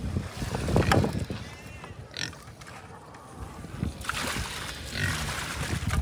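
Pigs grunting in short, irregular bursts, with a brief high chirp about two seconds in.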